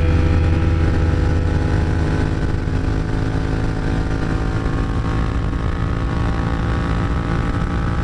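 Yamaha MT-07's parallel-twin engine running hard in sixth gear at highway speed, accelerating steadily so its note climbs slowly.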